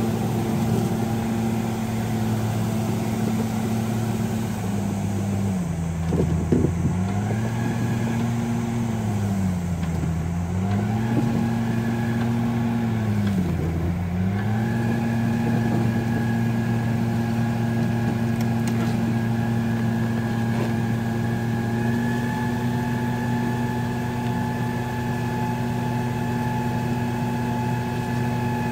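Crawler bulldozer's diesel engine running as it drags logs on its winch cable. Its pitch sags and recovers three times in the first half as the engine pulls under load, then holds steady. A short clatter comes about six seconds in.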